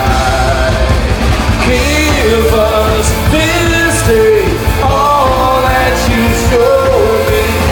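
A live rock band plays loudly, a singer's voice carrying the melody over electric guitars, bass and drums.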